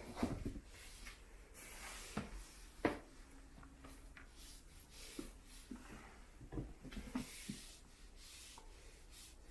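Quickle Wiper floor wiper sliding and rubbing over the floor, with scattered light knocks, the sharpest near the start and about three seconds in, as a kitten chases it.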